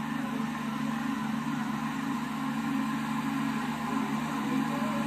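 Tractor engine running steadily as it works a boom sprayer, an even hum with no change in speed.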